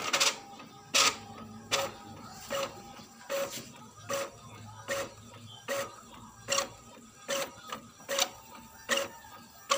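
Inkjet printer printing: the print head carriage makes a short whirring pass about every 0.8 seconds, a steady back-and-forth rhythm, as sheets feed out.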